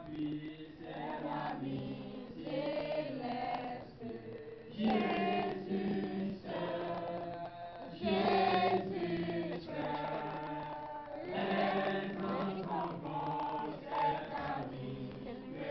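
A congregation singing a worship song together, in phrases with short breaks between them.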